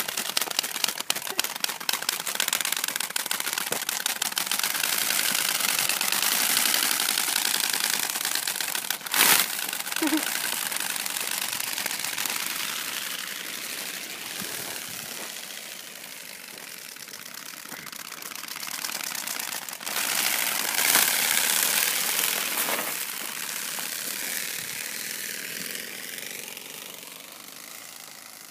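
Playing cards taped to a child's bicycle flapping against the wheel spokes as it is pedalled: a rapid clicking that runs together into a continuous motorbike-like rattle. There is one sharp knock about nine seconds in, and the rattle fades near the end as the bike moves away.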